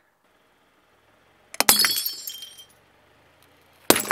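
A car tyre crushing brittle glazed ceramic, twice: a loud shattering crash about a second and a half in, with shards ringing and scattering for about a second, then a second crash near the end.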